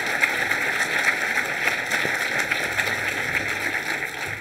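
Audience applauding, a dense steady patter of many hands clapping that begins to fade near the end.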